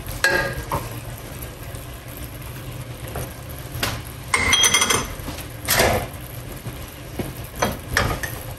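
Wooden spoon stirring a honey-soy sauce in a metal wok, scraping and knocking against the pan several separate times, with the longest scrape a little past the middle. A steady low hum runs underneath.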